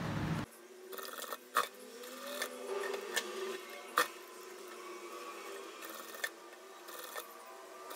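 Industrial single-needle sewing machine stitching slowly in short runs, the pleated fabric being fed by hand. A faint motor whir rises in pitch about two seconds in, and the mechanism gives a few sharp clicks, two of them loud.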